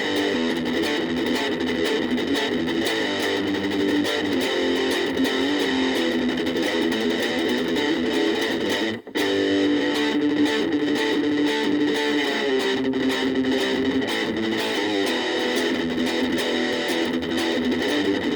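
Gaban Les Paul-type electric guitar played through a VOX Soundbox Mini amplifier, notes and chords ringing continuously. The playing breaks off very briefly about nine seconds in.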